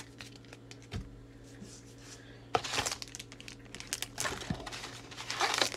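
A few soft taps of cards being handled, then from about halfway through the crinkling and rustling of a foil Pokémon booster pack wrapper being picked up and handled.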